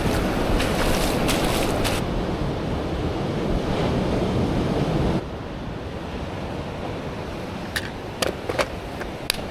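Ocean surf and whitewater washing against a rock ledge, with wind buffeting the microphone. It drops suddenly to quieter surf about halfway through, and a few sharp clicks come near the end.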